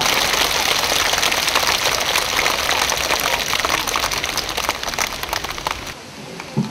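Audience applauding, a dense crackle of many hands clapping that slowly fades and then cuts off suddenly near the end.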